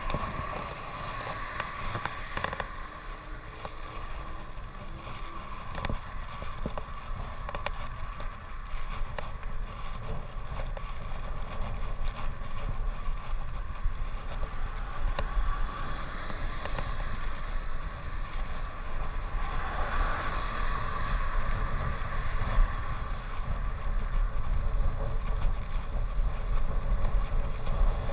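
Wind rushing over the microphone of a camera on a moving bicycle's handlebars, with road traffic going by. The wind rumble grows louder toward the end.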